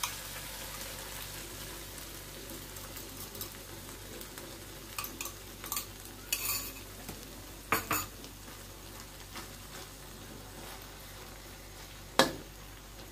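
Beaten egg sizzling in hot oil in a wok as it is poured over fried vegetables, with a few clinks of a fork against a glass bowl. One sharp knock of a spatula against the wok near the end.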